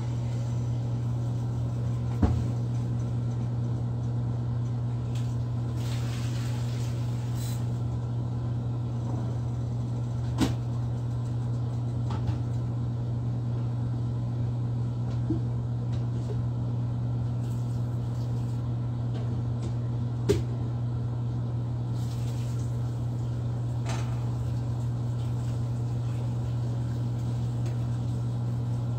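Steady low hum of a microwave oven running, with a few sharp knocks now and then.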